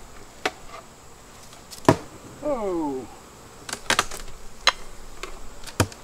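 Sharp clicks and knocks of wooden beehive boxes being handled and shifted, a handful spread over a few seconds, the loudest about two seconds in.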